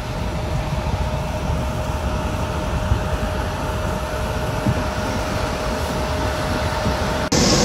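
Jet airliner climbing out after take-off: a steady, low engine roar with a thin steady tone above it, broken off abruptly near the end.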